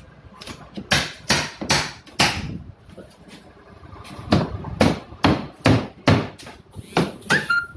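Sharp knocks struck in two runs, about two to three a second: four at first, then after a short pause about eight more. A brief squeak comes near the end.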